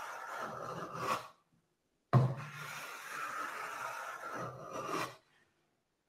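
Metal hand plane taking strokes along the edge of a wooden board, a dry hissing scrape of the iron slicing off fine shavings. One stroke ends about a second in; the next starts about two seconds in with a sharp knock as the plane lands on the wood and runs about three seconds, and another knock comes at the very end.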